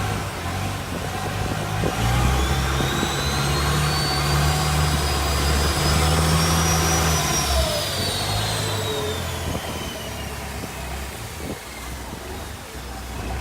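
Canal boat engine running loud. It swells about two seconds in, and a high whine climbs and then falls away as the engine sound fades toward the end.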